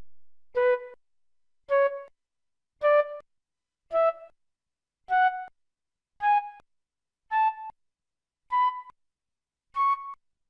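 Motorola MS600 keypad key tones played on its Yamaha MA-7 (YMU786) synthesizer chip: short pitched notes about one a second, each a step higher than the last, like a rising scale.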